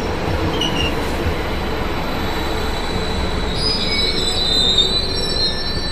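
SBB ICN tilting electric train pulling slowly into a station platform, with a steady rumble. High-pitched wheel and brake squeal sets in about halfway through as it slows.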